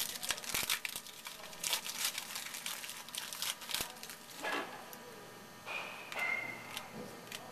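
Baseball card pack wrapper crinkling and crackling as it is torn open and handled, thickest in the first four seconds, then sparser handling noise.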